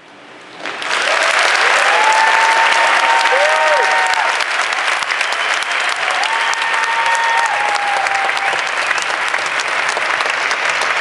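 A large audience bursts into loud applause about a second in, a standing ovation with cheers rising over the clapping.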